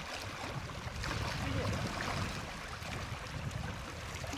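Wind rumbling on the microphone over the steady wash of small waves on open lake water.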